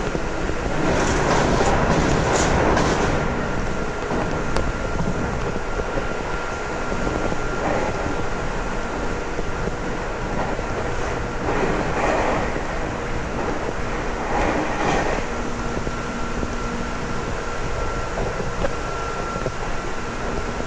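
Running noise of a JR Kyushu 811 series electric train in motion, heard from on board: a steady rumble with a thin steady whine. Short swells of hiss come about a second in and again around twelve to fifteen seconds in.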